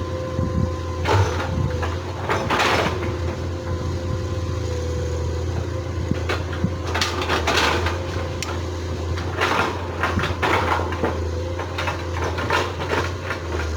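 Excavator's diesel engine running steadily, with repeated clanks and scrapes as the machine digs, in clusters a second or two apart.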